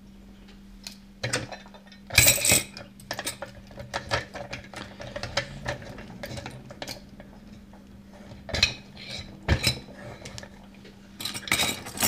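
Brass lock cylinder being fitted and clamped into a metal lock-holding vise: scattered metal clinks, knocks and clatters, with a few louder knocks about two seconds in and again later.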